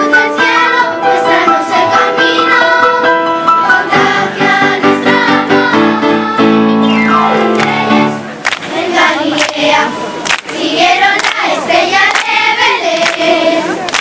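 Children's school choir singing a Spanish Christmas carol with electric keyboard accompaniment. The first half is held notes; about eight seconds in the singing turns livelier, with hand claps.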